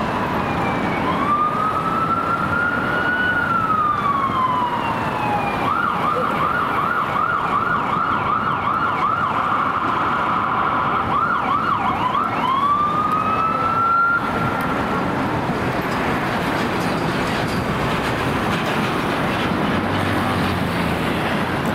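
Ambulance's electronic siren sounding a slow wail, switching to a fast yelp of about three sweeps a second, then back to a rising wail. The siren stops about two-thirds of the way through, leaving steady city traffic noise.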